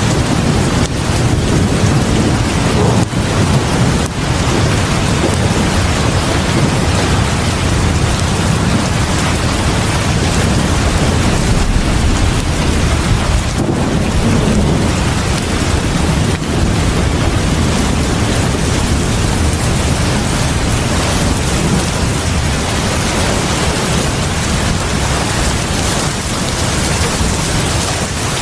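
Heavy rain pouring steadily onto a porch: a dense, even hiss with a deep low rumble underneath.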